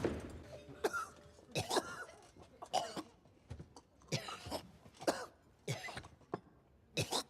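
A person coughing: a string of short, separate coughs, one every second or so, with brief quiet gaps between them.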